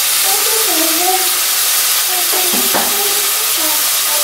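Chicken pieces sizzling as they fry in a kadai, a steady hiss, while a metal spoon stirs them. There are a couple of sharp knocks of spoon on pan about two and a half seconds in.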